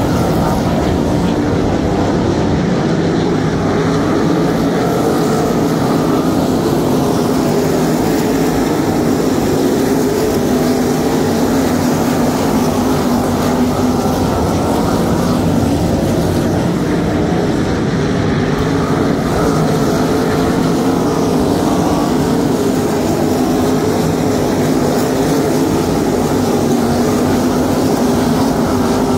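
A field of 305 sprint cars racing, their V8 engines running together in a loud, steady, unbroken drone.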